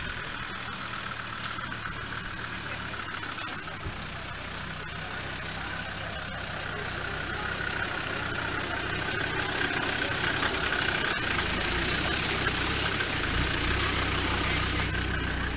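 Land Rover Defender 4x4's engine running as it crawls along an overgrown dirt track. It grows steadily louder from about halfway through and passes close by near the end.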